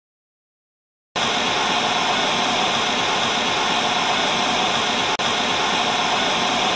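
Loud, steady hiss of static-like white noise that starts abruptly about a second in, drops out for an instant near the end, and cuts off sharply.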